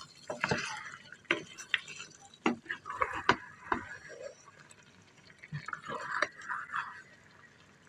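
Wooden spatula stirring masala-coated goat offal in a frying pan: wet squelching of the meat pieces with sharp knocks and scrapes of the spatula against the pan, in three spells of stirring.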